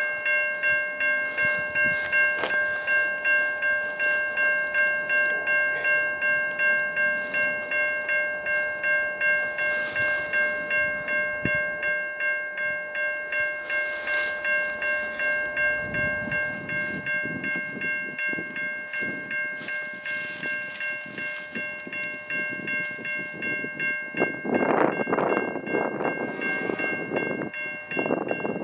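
Railway level-crossing warning bell ringing in a steady, even rhythm while the crossing gates are down for an approaching train. Near the end a rougher, louder noise of the oncoming train builds under the bell.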